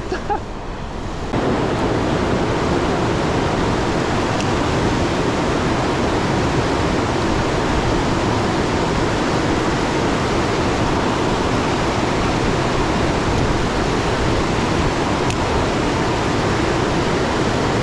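Rushing mountain stream: a steady, even rush of water that starts abruptly a little over a second in.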